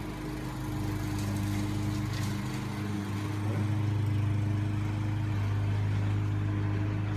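A steady low mechanical hum, with a few faint light ticks near the start.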